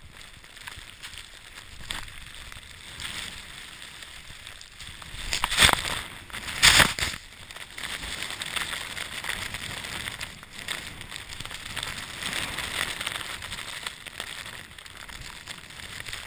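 Snowboard sliding through deep powder snow: a steady hiss, with two loud rushes of snow about five and a half and seven seconds in.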